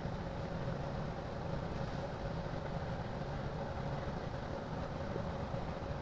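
Steady rumble of a Boeing 787-8's Rolls-Royce Trent 1000 turbofan engines flying over, with a thin steady whine running through it.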